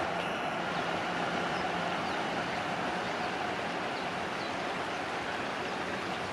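Steady rushing background noise, with a few faint, short high chirps from a Japanese white wagtail scattered through it.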